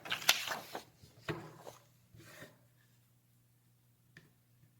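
Handling noise from an analog multimeter and its test leads: several sharp clicks and short rubbing scrapes in the first two and a half seconds, then a faint single tick near the end.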